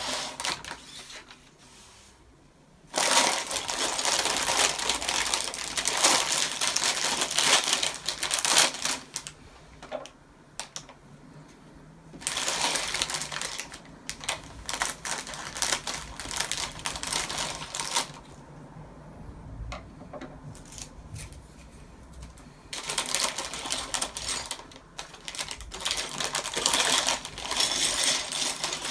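Plastic polybags of LEGO pieces crinkling, with the loose plastic bricks inside rattling and clicking, as the bags are handled and opened. The sound comes in three loud stretches of several seconds each, with quieter handling in between.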